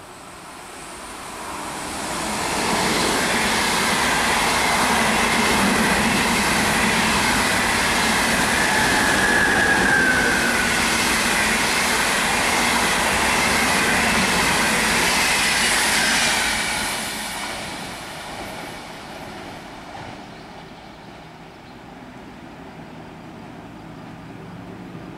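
An ÖBB Railjet of two coupled sets, driving trailer leading and locomotive at the rear, running through the station without stopping. The rush of wheels on rail builds over the first few seconds and holds loud for about thirteen seconds, with a brief high squeal midway. It then fades as the train pulls away.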